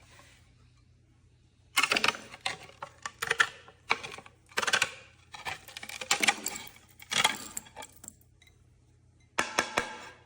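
Slate being cut with the cutter blade of an early-1900s slate multi-tool: a series of sharp crunching snips, about ten strokes, beginning about two seconds in, with a short pause before a last burst near the end. The tool is cutting cleanly.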